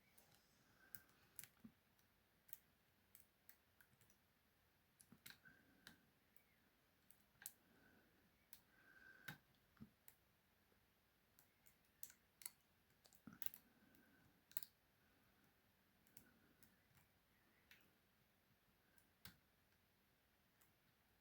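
Faint, irregular clicks and taps of a mini lock pick working the pin stack of a small K2000 lockout padlock held under tension from a bottom-of-keyway tensioner, as pins are lifted and set one by one.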